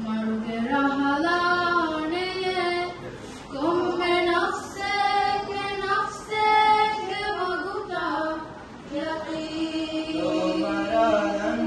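A group of young voices singing a madhaha, a Maldivian devotional Islamic song, together without instruments, in long held phrases with brief pauses between them.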